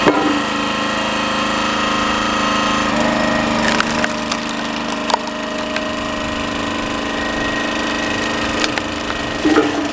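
Small gas engine of a Mighty Mac hydraulic log splitter running steadily, its note dropping slightly about three seconds in as the ram pushes the log onto the wedge. A few sharp cracks and snaps come from the birch log splitting.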